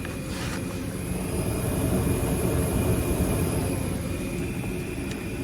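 An 80% gas furnace running with its burners lit and circulating blower on: a steady low rushing noise that swells slightly in the middle and eases off.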